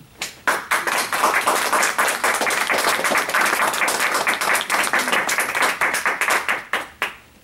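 Audience applauding: many people clapping together. It starts about half a second in and dies away near the end.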